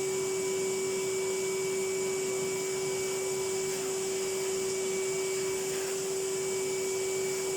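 Bagged vacuum cleaner running steadily, a constant motor whine over a rushing hiss of air.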